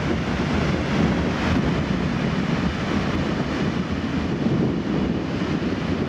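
Wind buffeting the camera microphone: a steady, gusting rumble.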